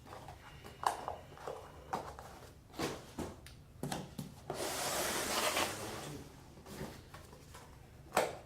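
Faucet parts and packaging being handled: a string of light knocks and clicks, a rustle lasting about a second and a half midway through, and a sharper knock near the end.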